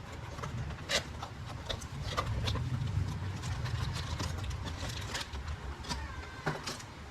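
Kawasaki Z400 parallel-twin engine idling with a steady low rumble, with a few sharp clicks scattered over it.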